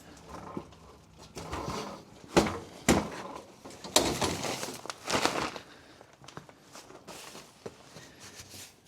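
Irregular knocks, clunks and clatter of things being handled and moved about, with the loudest clunks about two and a half, three, four and five seconds in.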